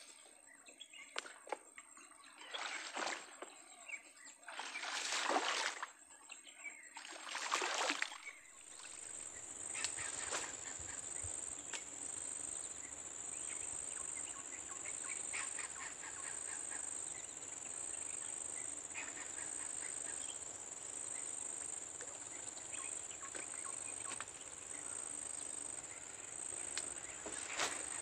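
Outdoor swamp ambience with a high, steady insect drone that grows stronger and pulses from about eight seconds in. In the first eight seconds there are three short rushing noises.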